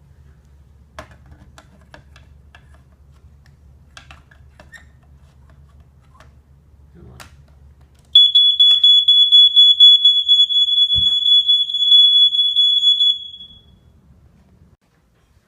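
Vintage First Alert smoke alarm sounding on test: one steady, loud, high-pitched tone that starts about eight seconds in and lasts about five seconds before fading out. Before it there are only a faint low hum and a few soft clicks.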